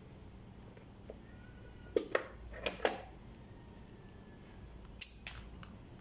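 Spyder Fuel half-face motorcycle helmet being handled as it is put on and its chin strap fastened: a few sharp plastic clicks and knocks, a cluster of four about two to three seconds in and a pair near the end.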